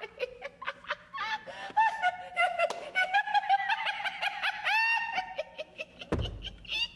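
People laughing and snickering, breaking into high, rising squeals of laughter about five seconds in. A low rumble comes in near the end.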